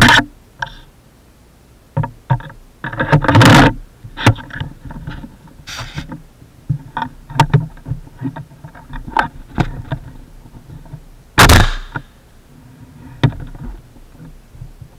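Flintlock musket being handled, heard through a camera mounted on the gun: a run of clicks, knocks and scrapes, with loud bursts of knocking and rattling right at the start, about three seconds in, and about eleven seconds in.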